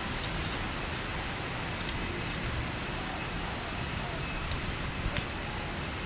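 Strong wind blowing through forest foliage, a steady rustling hiss with a low rumble of wind buffeting the microphone, and a few faint clicks.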